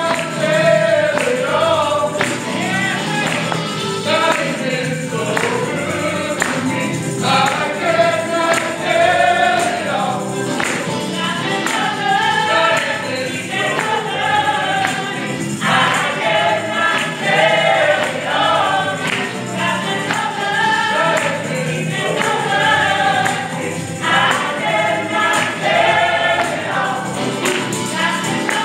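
Gospel praise team of male and female voices singing together over music, with a steady percussive beat.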